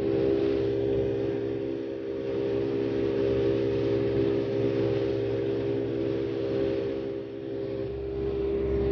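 A motorboat's engine running at a steady cruising speed, with water rushing along the hull.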